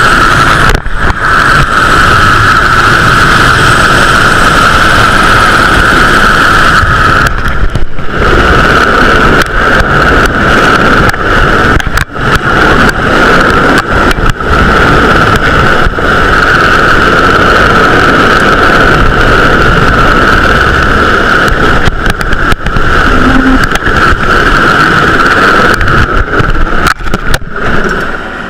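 Super Puma helicopter running loud overhead during a winch hoist: a steady high turbine-and-gearbox whine over heavy rumble, with a few brief dips. It drops in level near the end.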